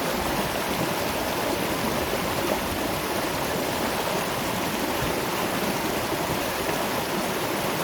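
Waterfall and river water rushing steadily, an even, unbroken rush.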